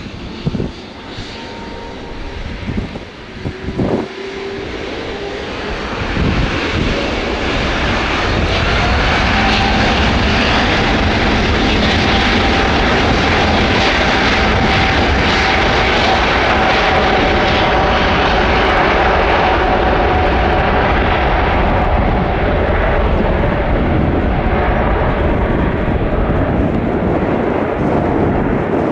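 Jet engines of a Qatar Airways Airbus A350-900, Rolls-Royce Trent XWBs, passing close: the noise builds over the first several seconds, stays loud and steady with a faint whine, then eases a little near the end. A few short thumps come in the first four seconds.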